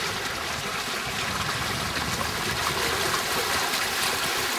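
Steady rushing wash of water and wind around a canoe sailing under a makeshift tarp sail.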